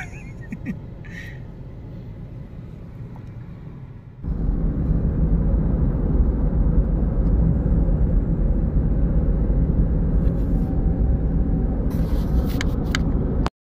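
Road noise of a moving SUV heard from inside: a steady low engine and tyre rumble that about four seconds in jumps suddenly to a much louder rumble.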